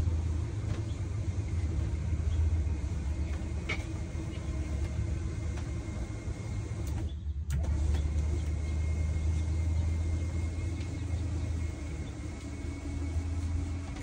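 RV slide-out motor running as the slide room retracts: a steady low hum with a faint whine, breaking off briefly about halfway through before running on.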